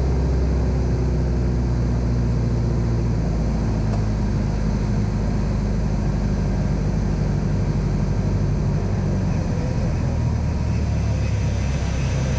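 Van's RV-7 light aircraft's piston engine and propeller in cruise, a steady drone heard inside the cockpit, its tone shifting slightly a few times.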